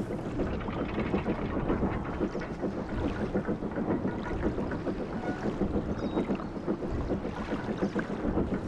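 Steam locomotive running fast: rapid, even chuffing mixed with the rattle of its wheels on the track.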